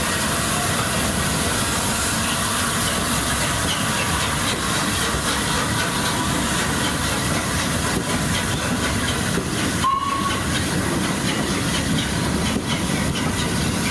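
Steam locomotive Flying Scotsman, an LNER A3 Pacific, with a steady loud hiss of escaping steam over a low rumble. A short high note sounds briefly about ten seconds in.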